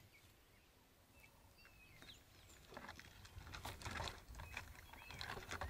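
Faint scraping and rustling as a male lion climbs the trunk of a tree, with a few soft bird chirps.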